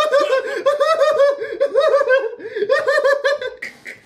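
A man laughing hard in quick, rapid bursts of belly laughter that break off about three and a half seconds in, followed by a few softer gasps.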